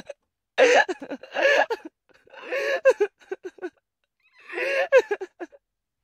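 A woman sobbing in four short bouts of choked, high-pitched crying, with brief silent pauses between them.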